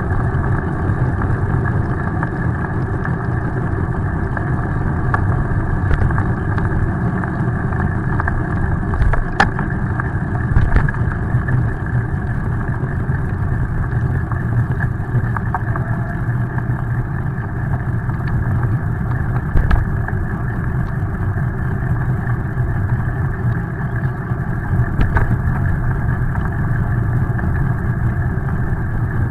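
Steady wind and wet-road noise from a moving bicycle carrying the camera, heard as a dull, muffled rush, with a few brief knocks from bumps.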